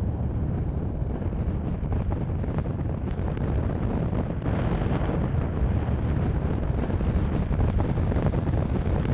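Steady low rumble of wind buffeting the microphone, growing a little stronger about halfway through.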